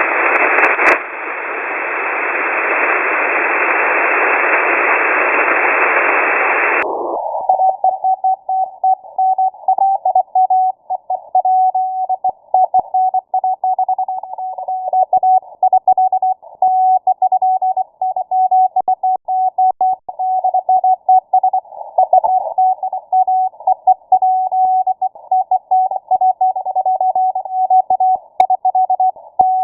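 Shortwave radio receiver hiss through a wide voice-width passband. About seven seconds in, the passband narrows and a Morse code (CW) signal comes through: a single-pitch tone keyed rapidly on and off over band noise.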